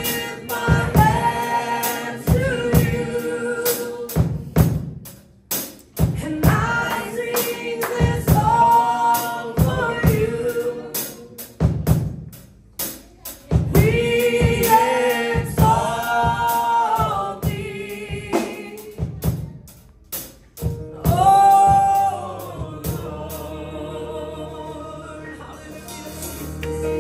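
Gospel worship music: voices singing phrases over a steady drum beat. Near the end the singing stops, leaving a held chord.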